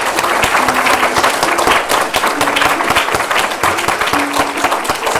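Applause: a group of people clapping steadily, with plucked-string background music playing underneath.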